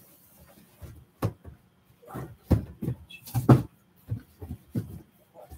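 Irregular knocks and thumps with some rustling as papers hanging on a wall are lifted and handled; the loudest knocks come about two and a half and three and a half seconds in.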